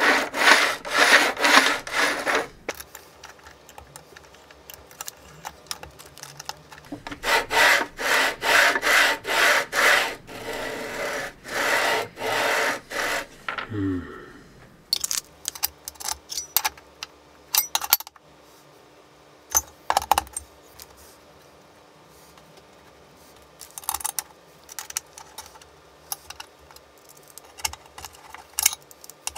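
An aluminium plate on linear-rail guide blocks pushed rapidly back and forth along steel rails, a rhythmic rasping about three to four strokes a second, in two spells. After that, scattered clicks and knocks of metal parts being handled and fitted.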